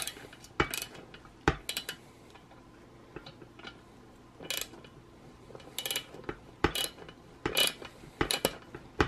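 Socket ratchet clicking in short bursts, with metal tools clinking, as a homemade bolt-and-socket puller is tightened to press a swingarm bearing out. There is a quieter pause about two to four seconds in.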